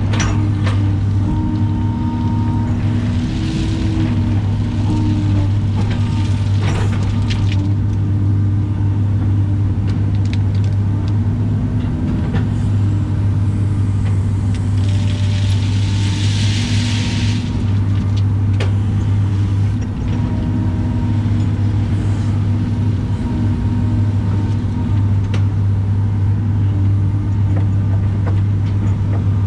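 Caterpillar excavator's diesel engine running steadily under load, heard from inside the cab, with pitched hydraulic tones that come and go as the boom and bucket work. Gravel clatters in the bucket, and about halfway through there is a rushing noise of about two seconds as rock spills out.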